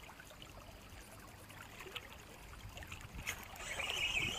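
Faint flowing river water, growing a little louder toward the end, with a faint steady high tone joining about three seconds in.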